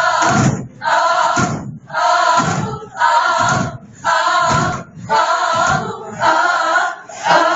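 Many voices chanting together in unison, one strong phrase about every second in a steady rhythm. A low thud lands at the start of each beat.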